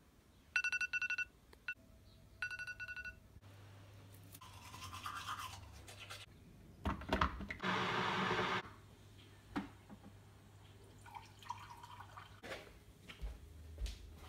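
A phone going off with two short buzzing bursts, each a rapid pulsing tone about a second apart. It is followed by stretches of rushing, hissing noise, loudest for about a second some eight seconds in, when an electric kettle is heating. Scattered knocks and clicks come near the end.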